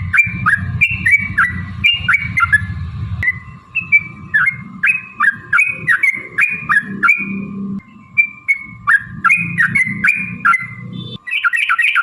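Yellow-vented bulbul (trucukan) singing a long, continuous run of short, bubbly whistled notes, several a second, each dropping in pitch. Near the end the low rumble underneath cuts off and the song changes to a faster, denser chatter.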